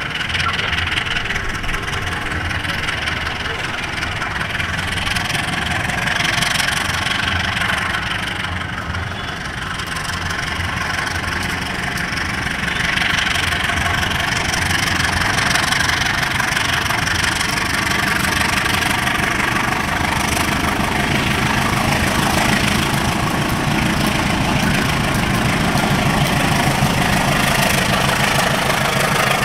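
Diesel-electric locomotive engine running steadily as it hauls a coal train of hopper wagons toward the listener. It grows a little louder from about ten seconds in as it draws closer.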